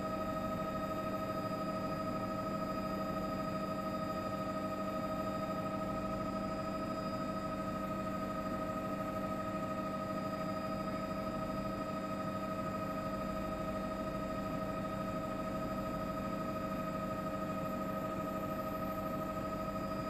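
Steady drone of a helicopter's engine and rotors heard from inside the aircraft, with several constant whining tones over a low rumble.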